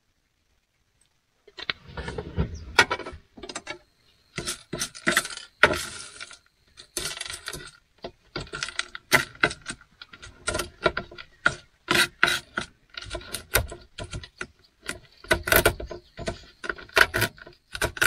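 Knife chopping oiled pumpkin seeds on a small plastic cutting board: quick, irregular knocks of the blade on the board, starting about a second and a half in.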